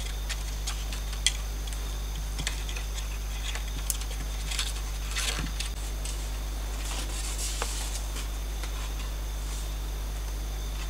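Light clicks and taps of bamboo poles being handled as they are fitted and lashed onto a hut's roof frame, with a brief rustle near the end. A steady low hum lies underneath.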